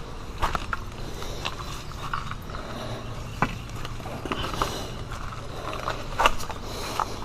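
Footsteps on rocky ground, an uneven run of crunches and clicks.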